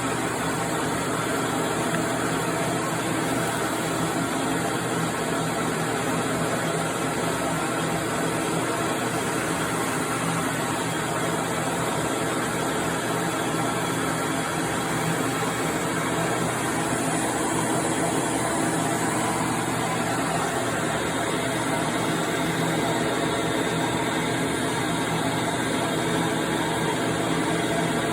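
Bandsaw running steadily: an even motor hum under a broad whirring noise, with no change in speed or pitch.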